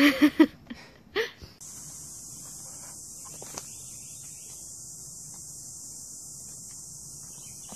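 A voice briefly at the start. About a second and a half in, a steady, high-pitched insect chorus takes over and holds level.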